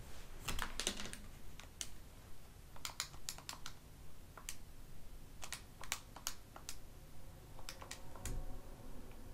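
Keys being pressed: sharp, irregular clicks, some in quick runs of two to four, while the arithmetic of an average-value problem is worked out.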